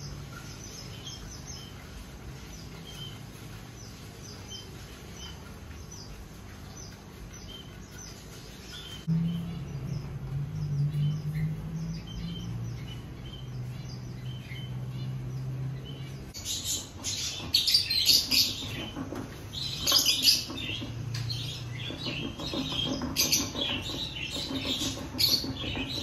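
Pet birds chirping, faint and scattered at first, then many quick loud chirps through the second half.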